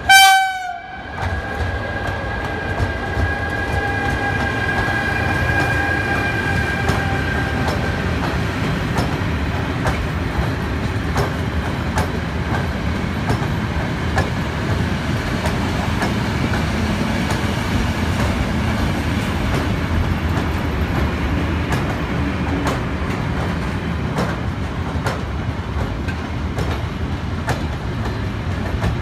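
Electric freight train of loaded car-carrier wagons passing, with a steady rumble and a clatter of wheels over rail joints. It opens with a loud short burst that falls in pitch, and a high ringing tone that fades away over about eight seconds.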